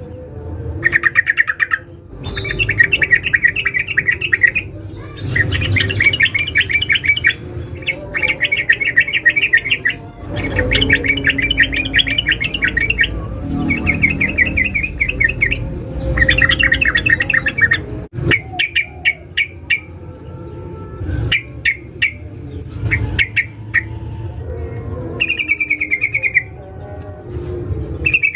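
Yellow-vented bulbul (trucukan) calling in fast chattering bouts: each bout is a rapid train of the same sharp note, lasting one to two seconds, repeated about a dozen times with short pauses between. It is a female's call to draw a male.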